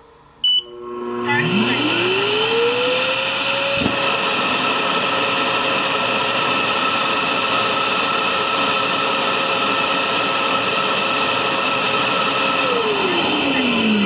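ROIDMI EVA self-emptying dock's suction motor evacuating the robot vacuum's dustbin into the dock's dust bag. A short beep comes as the button is pressed, then the motor spins up with a rising whine over about two seconds. It runs steadily with a rushing airflow, then winds down with a falling pitch near the end.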